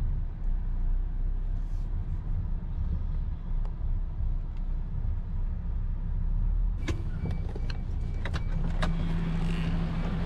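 Truck's diesel engine idling, heard from inside the cab. About seven seconds in come a few clicks and knocks as the cab door is worked, with a short run of repeated beeps.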